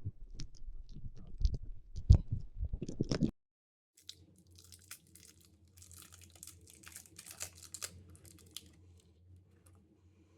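Crinkling and tearing of a hard-boiled sweet's plastic wrapper as it is opened, with sharp crackles for about the first three seconds, then fainter rustling over a low hum.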